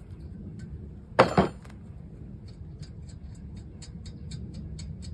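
Loose steel caliper bolts and hand tools handled on a truck's front brake: one loud metallic clank about a second in, then a run of light, even ticks, about three a second.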